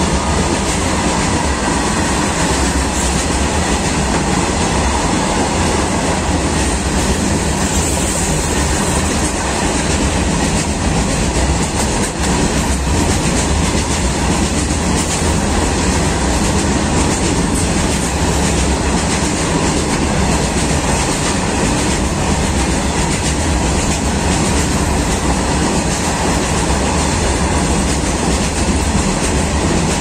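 Freight train of open-top box wagons rolling past at speed: a loud, steady rumble and clatter of steel wheels on the rails.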